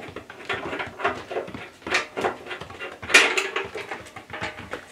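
Metal clicks and clatter from the upper wheel door of a Record Power BS250 bandsaw being unfastened and swung open, with the loudest knock about three seconds in.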